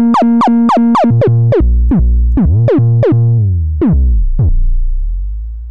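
808-style bass notes from the FAW SubLab synth, played in a rapid run. Each note starts with a fast downward pitch sweep from the pitch envelope and settles into a deep sustained tone. The notes slow down, and the last one rings out and fades near the end.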